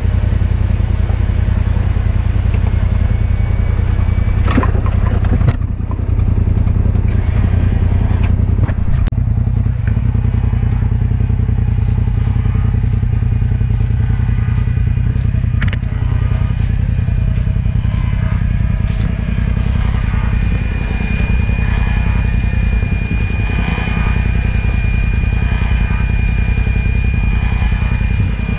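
Polaris RZR side-by-side engine running steadily, with a few sharp knocks in the first ten seconds and a thin high whine over the engine in the last third.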